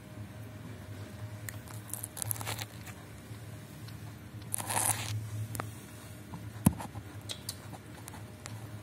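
Scattered rustling and crinkling, the longest stretch about five seconds in, over a low steady hum, with one sharp click about two-thirds of the way through.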